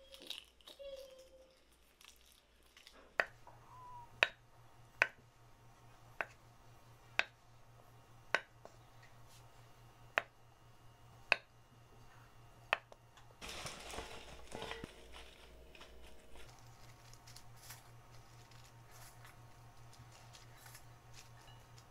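Sharp, short taps or clicks, about one a second for some ten seconds over a faint low hum, followed by a few seconds of rustling.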